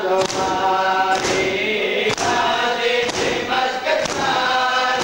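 Men chanting a Punjabi noha in chorus. Sharp slaps of hands beating chests in unison land about once a second: matam.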